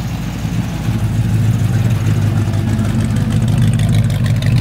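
A car engine running steadily at idle with a low rumble, getting louder about a second in.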